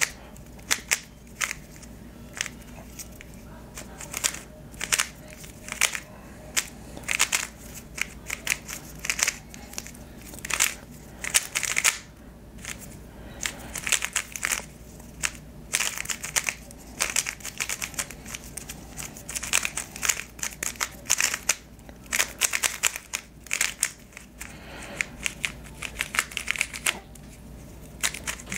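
Moyu YS3 M 3x3 speed cube being turned fast during a solve: quick, irregular runs of plastic clicking and clacking layer turns, broken by short pauses. The cube is lubed (Vortex on the core, Controlius and Martian on the pieces) and still breaking in.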